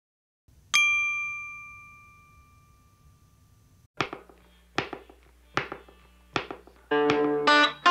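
A single bright metallic ding, an intro-logo chime, that rings out and fades over about three seconds. Then music begins: four sharp hits evenly spaced under a second apart, followed by sustained chords about a second before the end.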